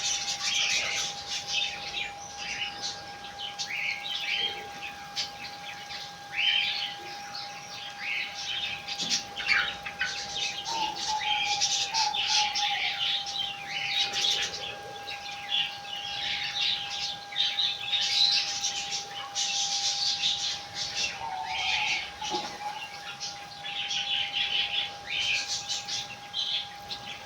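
Small pet birds chirping and squawking continuously in quick, irregular bursts, with a steady high-pitched hum underneath.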